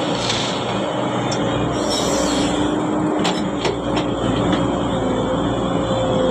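Heavy diesel machinery running steadily under load, with a few sharp metallic clanks a little over three seconds in.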